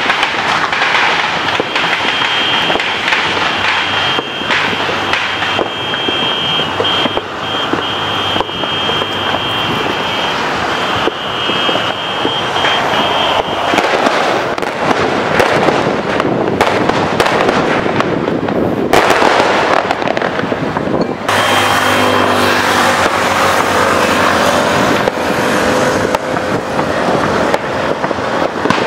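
New Year fireworks and firecrackers going off in many places at once: a dense, continuous crackle of bangs and pops. A steady high tone runs through the first half, and a lower held tone joins about two-thirds in.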